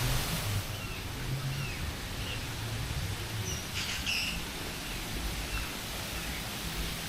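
Birds giving scattered short chirps and whistles, with a brief cluster of calls about halfway through, over a low background rumble.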